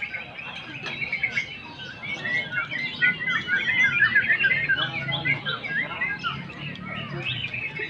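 Many caged songbirds singing at once, a dense chorus of overlapping chirps and trills that grows busier about three seconds in.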